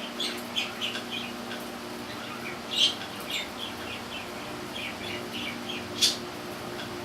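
Birds chirping in quick, short chirps, with two louder, sharper calls about three and six seconds in, over a steady low hum.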